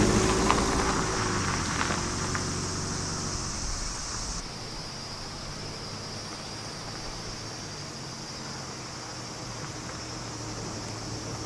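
Toyota HiAce van's engine running as it pulls away over a gravel track, with a few crunches of stones, fading over the first four seconds. Then a steady chirring of insects, with the van's engine a faint hum underneath as it approaches.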